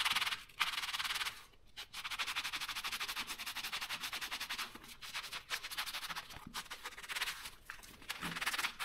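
Foam sponge rubbing oil into a leather boxing glove: a soft, quick back-and-forth scrubbing with a few brief pauses between bouts of strokes.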